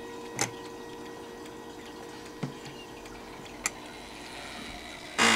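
Howard Miller Thomas Tompion mantel clock, its minute hand being turned by hand: a few sharp clicks over the fading ring of the previous chime notes. Near the end comes a loud clack as the chime mechanism trips and the chime begins.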